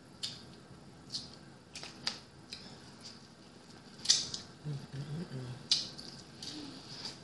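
Close-up eating sounds: wet lip smacks and sucking, then crunchy bites into an ear of corn on the cob, the loudest about four seconds in, with a brief low hum of voice just after.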